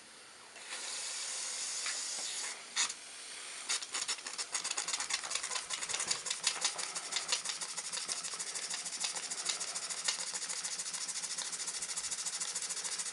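Live steam hissing as a model boiler's valve is cracked open, then a Muncaster double-acting table engine starting up on the steam: its exhaust beats begin about four seconds in and settle into a quick, even chuffing.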